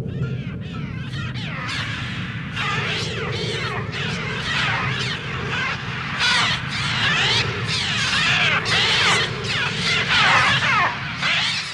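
A film soundtrack's massed gull cries: many overlapping, falling shrieks from a large flock over a steady low rumble, growing louder past the middle and cutting off at the end.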